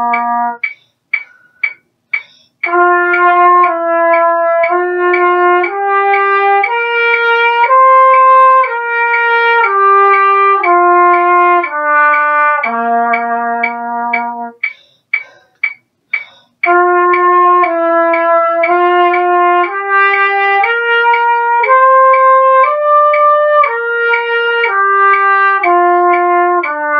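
Trumpet playing a slurred flow study (lip-slur exercise): smooth, connected notes stepping up and then back down in a long phrase, a short pause about a second in and again about halfway through, then the same phrase repeated.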